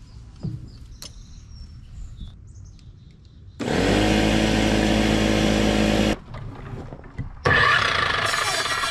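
Electric miter saw cutting lumber: the motor starts abruptly a few seconds in, runs steadily for about two and a half seconds and cuts off, then starts again near the end and runs on.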